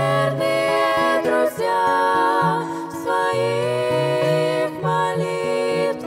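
Female vocal trio singing a Russian-language hymn in harmony through microphones, over an instrumental accompaniment of held low notes.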